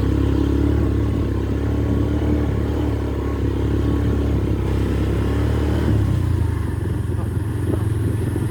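Motorcycle engine running steadily as the bike rides along a road, its note shifting slightly about six seconds in.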